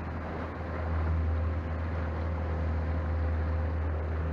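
Boat's outboard motor running steadily: a low drone with a faint higher whine, over the wash of choppy water and wind as the small aluminium boat travels.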